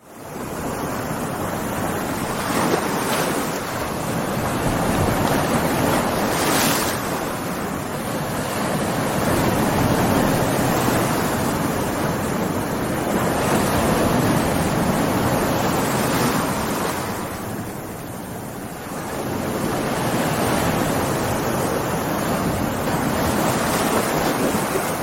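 Stormy sea: heavy waves crashing and surging without a break, with wind noise, the level swelling and easing every few seconds and dipping briefly about two-thirds of the way through.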